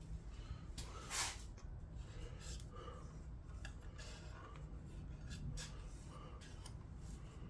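Faint handling noises from work on a gas boiler: scattered light clicks and scrapes, with one louder rustle about a second in, over a low hum.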